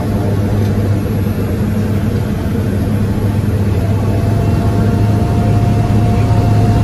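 Single-engine propeller airplane's engine and propeller running loud and steady during the takeoff roll, heard from inside the cabin as a deep continuous drone. It grows slightly louder toward the end.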